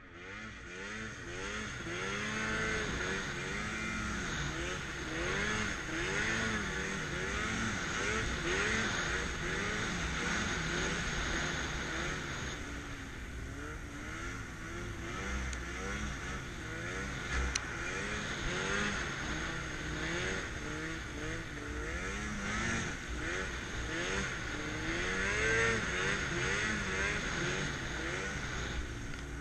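Arctic Cat M8000 Sno Pro snowmobile's two-stroke twin engine running hard through deep powder, its revs rising and falling over and over as the throttle is worked.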